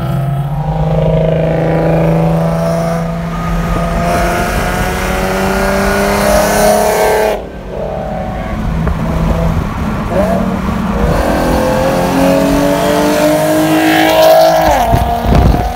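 Straight-piped exhaust of an Infiniti G37's V6 with a Beluga exhaust, loud as it accelerates in repeated pulls, its pitch climbing through the revs. There is a sharp break about halfway through, and a loud rev rises and falls near the end.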